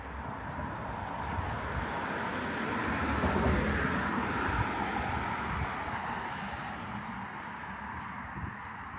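A car passing by on the road: its engine and tyre noise swells to a peak about three and a half seconds in, then slowly fades away.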